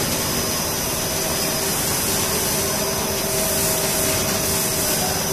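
Blown film extrusion line running: a steady rush of cooling air from its centrifugal blowers over a machine hum, with a few steady tones held throughout.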